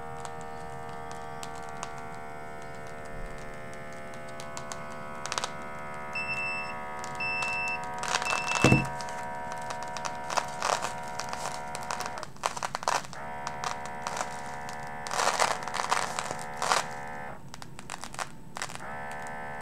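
Electronic blood pressure monitor's small air pump running steadily as it inflates the cuff, cutting out briefly twice, with three short high beeps and scattered clicks and crackles of handling. The cuff is being pumped up to the point of overinflating.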